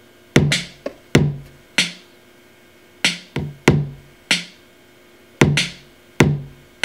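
Programmed drum loop playing from a Native Instruments Maschine: sampled kick drum and snare hits in a dirty-south hip-hop pattern, repeating about every two and a half seconds.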